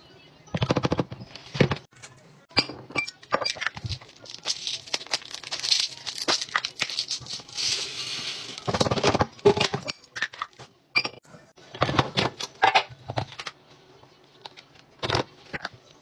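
Plastic laundry containers and glass jars being handled, with a run of sharp clicks and knocks. Around the middle comes a stretch of small scent-booster beads pouring into a glass jar, a dense rattling hiss.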